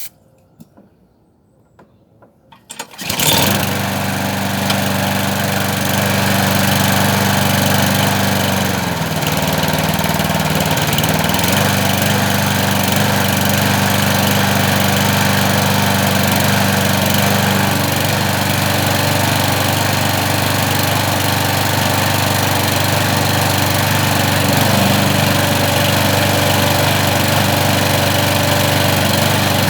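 Petrol push lawnmower engine starting about three seconds in and running, its speed sagging for a couple of seconds and wavering without settling, then cutting off at the end. The owner says it is shaking and not levelling out, which he puts down to the carburettor.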